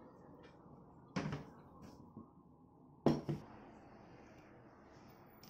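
Two short knocks about two seconds apart, the second a louder quick double knock, like hard household things knocking against each other.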